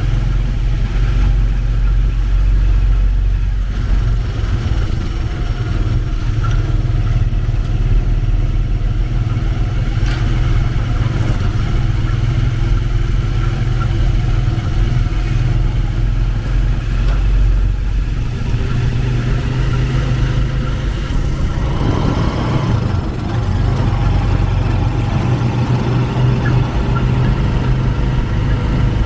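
Motorcycle engine of a sidecar tricycle running steadily while riding, heard from inside the sidecar along with road noise. The engine note shifts briefly about two-thirds of the way through.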